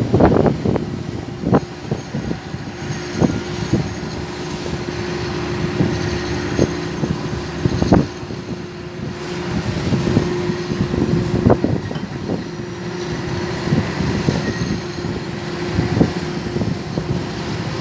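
Ship's deck crane machinery running with a steady hum, with irregular knocks and clanks, the sharpest about eight seconds in.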